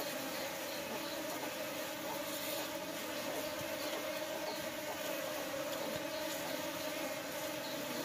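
Many honeybees buzzing together in a steady, unbroken hum.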